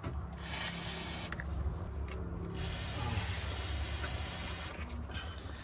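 Aerosol lubricant sprayed onto a rubber exhaust hanger to help it slip off its mount: two bursts of hiss, a short one and then a longer one of about two seconds.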